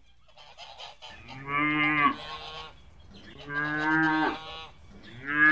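A cow mooing three times. Each moo is drawn out for about a second, on a fairly level pitch, with the moos spaced about two seconds apart. The third begins near the end.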